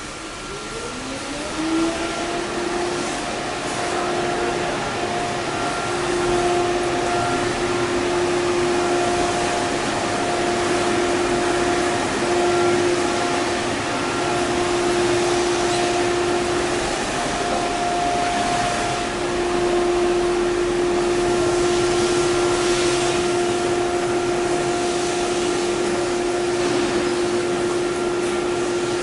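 Small electric inflation blower switched on: its whine rises in pitch over the first two seconds or so, then it runs steadily with a constant whine over rushing air as it inflates a fabric inflatable elephant.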